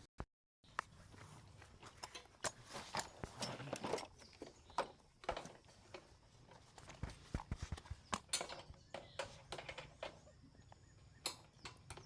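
Irregular knocks and clicks of metal tools and parts being handled, as on a workbench during starter-motor repair.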